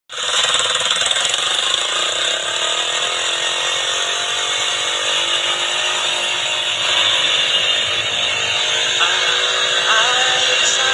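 Motorcycle engine running steadily to drive a rope winch that hauls sacks of vegetables up a steep slope, its pitch creeping gently upward.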